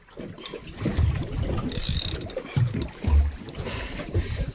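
Irregular mechanical clicks and knocks over heavy low thumps, the loudest thump about three seconds in.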